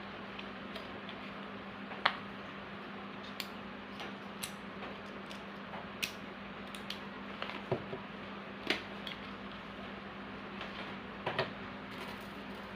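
Irregular light clicks and taps of small metal bird leg rings and their packing being handled, about a dozen over a steady background hum, the sharpest about two seconds in.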